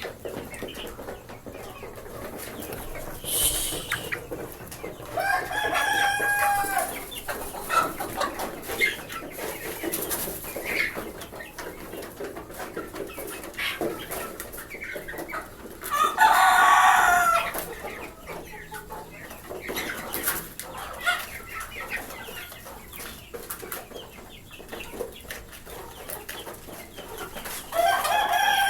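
A backyard flock of desi chickens clucking, with roosters crowing about three times: a crow a few seconds in, the loudest one around the middle, and another starting near the end.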